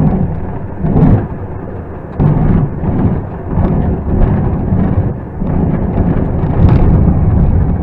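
Heavy wind rumble buffeting the microphone in a light aircraft's cockpit as it comes down onto a grass field, in irregular loud surges, with the rumble and jolts of the airframe over the ground.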